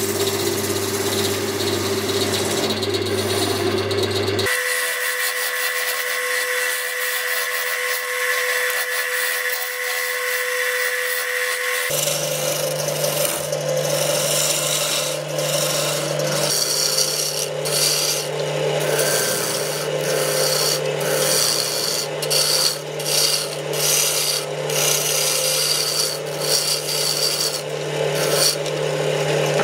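JET JWL-1443 wood lathe running, with a hand-held turning tool cutting the spinning silverberry wood: a steady motor hum under the hiss and scrape of the cut. The sound changes abruptly about four seconds in and again about twelve seconds in. From about halfway through, the cutting comes in uneven strokes as the gouge shapes the goblet stem.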